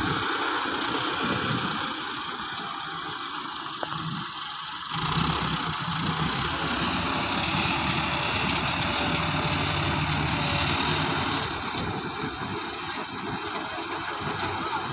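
Diesel engine of heavy road-work machinery running steadily. About five seconds in it suddenly grows louder, with a deeper hum.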